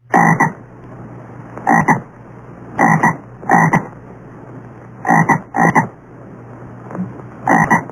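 A frog croaking about seven times at uneven intervals, some calls in quick pairs, over a steady background hiss.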